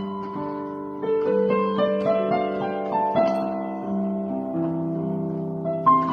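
Piano music: single notes played one after another as a melody over held lower notes.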